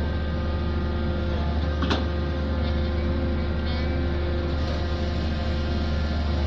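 Heavy diesel engine of a pile-driving rig running steadily with a deep, even drone. A single sharp knock comes about two seconds in.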